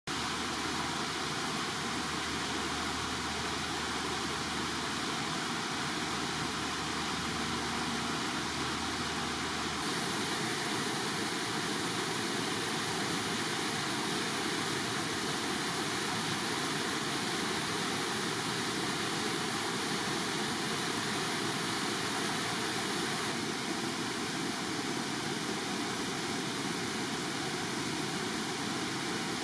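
Steady rushing of water pouring over a waterfall, with no break; its tone shifts a little about ten seconds in and again later on.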